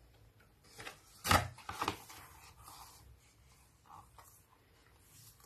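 Sketchbook pages being turned by hand on a wooden table: stiff paper and card rustling, with a sharp flap about a second in and a few softer rustles after.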